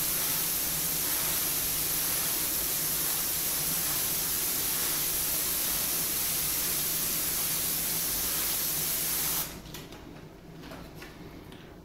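Iwata HP-CS airbrush spraying paint in a steady hiss, which cuts off about nine and a half seconds in.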